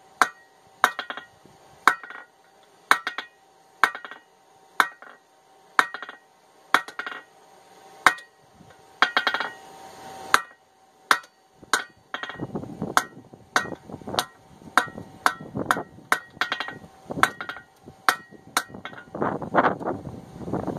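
Hand hammer striking a hot steel hammer head on an anvil, each blow ringing. The blows come about once a second, then quicken to about two a second about halfway through, with a low rushing noise underneath, while the chipping end of an old ball peen hammer head is drawn out.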